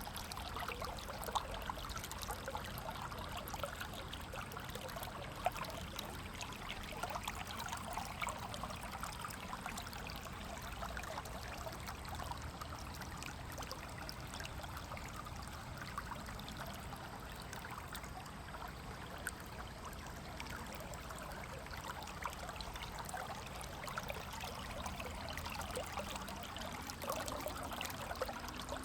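A shallow river flowing steadily, water splashing and trickling over stones with a fine bubbling texture.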